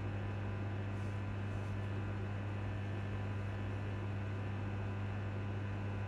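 Traction cooling fans of an Alstom electric train standing still, heard from inside the carriage: a steady low hum with a fainter hum above it and a few thin steady tones over an even whir.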